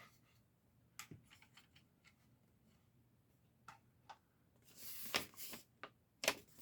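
Faint, scattered clicks and taps of small plastic toy parts being handled and set into place, with a brief rustle about five seconds in.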